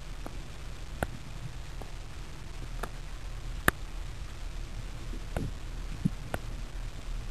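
Underwater ambience: a steady low rumble with about six scattered sharp clicks. The loudest click comes a little past halfway.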